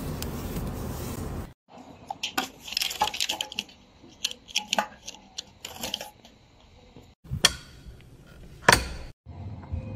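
Metal clicks and clinks of a Honda motorcycle's fuel-tank cap being worked open, a quick run of small sharp strikes. It follows a second and a half of steady noise that cuts off abruptly, and two louder sharp clicks come near the end.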